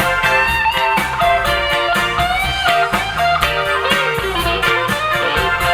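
Live band playing an instrumental break in a soul ballad, a melodic lead line with bends over bass and a steady drum beat.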